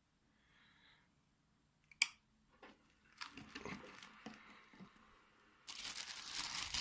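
A sharp click, then scattered small clicks and rustling, with a louder steady rustle or hiss coming in near the end.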